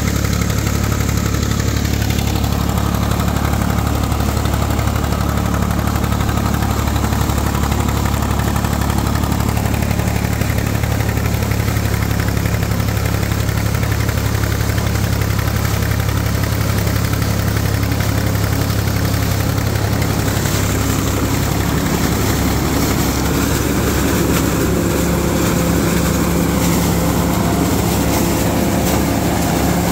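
IMT 549 DV tractor's diesel engine running steadily while it drives a SIP Tornado 80 corn picker through standing maize. About twenty seconds in, the mix of tones shifts and higher tones join the steady engine note.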